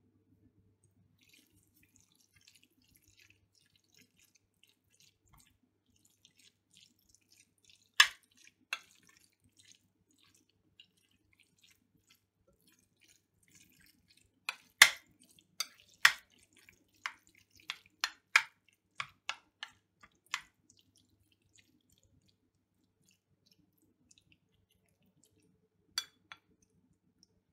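Metal fork clinking against a ceramic bowl as the cooked onion and pepper salad is tossed, with faint wet rustling of the dressed vegetables between the clinks. A couple of clicks come first, then a quick run of about a dozen in the middle, and two more near the end.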